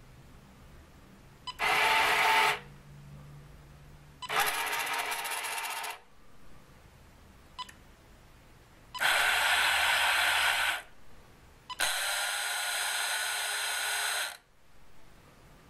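Electric motors of a 1962 model excavator running in four short bursts, each switched on with a relay click, moving its clamshell grab and crane. Each run lasts one to two and a half seconds and then stops.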